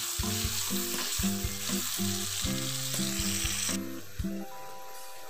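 Chopped onion, garlic and green chillies sizzling in hot oil in a cast-iron karahi, stirred with a metal spatula that scrapes the pan. The sizzle cuts off suddenly about four seconds in. Soft background music plays under it.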